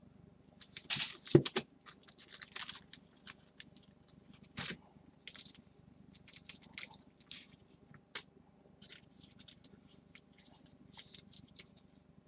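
Trading cards and plastic card holders or packaging being handled: scattered soft crinkles, rustles and clicks, with one sharper knock about a second and a half in.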